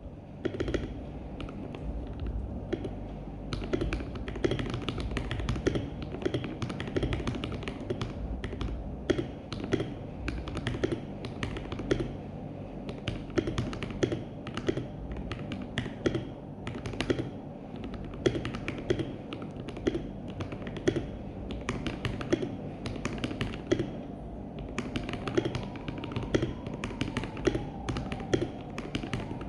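Continuous typing on a CIY Tester84 mechanical keyboard with lubed KTT Strawberry linear switches and Akko ASA-profile keycaps: a steady stream of key clacks, briefly thinning about three seconds in.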